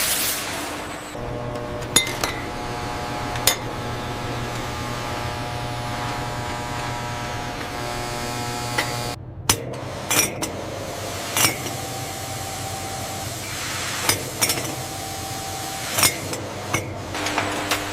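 Factory machinery running with a steady hum, broken by a dozen or so sharp clinks, several in quick succession about ten seconds in.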